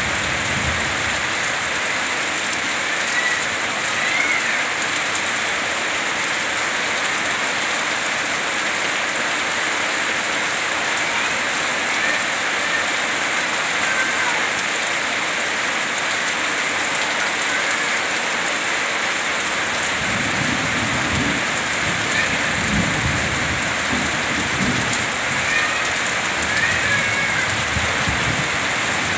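Heavy rain pouring down, with water streaming off a roof edge onto the ground, a steady dense hiss. About two-thirds of the way through, a low rumble of thunder comes in, swelling and fading several times.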